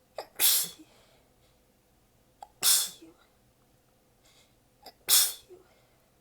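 A person sneezing three times in a fit, about two and a half seconds apart, each sneeze preceded by a quick sharp in-breath. The sneezes are partly held back, out of tiredness and sore abs.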